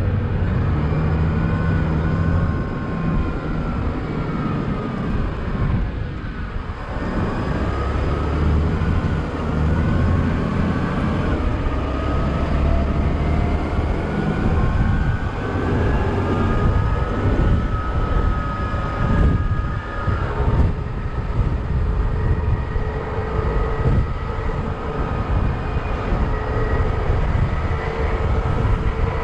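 Open-top double-decker bus driving along, heard from its open upper deck: a steady low rumble of engine and road, with a whine that slowly rises and falls in pitch as the bus changes speed.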